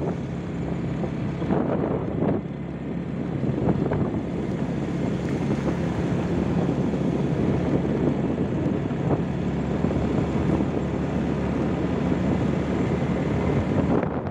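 Vehicle driving along a rough gravel dirt road: a steady engine hum under road and wind noise on the microphone, with a few knocks from bumps in the first few seconds.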